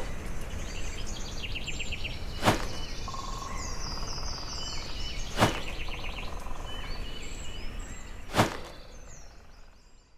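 Birdsong ambience, several birds chirping and trilling, with three short loud hits about three seconds apart, fading out near the end.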